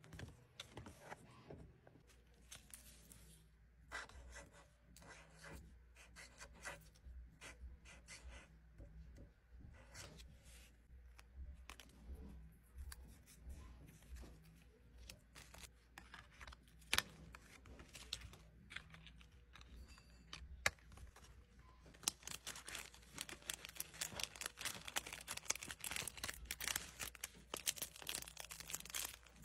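Paper cards and stickers handled on a wooden desk, with scattered light taps, clicks and rustles. In the last several seconds a clear plastic sleeve crinkles steadily as items are slid into it.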